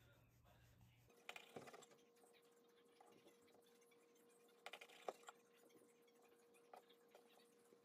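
Faint crunching of a kitchen knife slicing the crusts off soft white-bread egg sandwiches, with the blade tapping the wooden cutting board in short bursts of clicks about a second in and again near five seconds. In between: near silence with a faint steady hum.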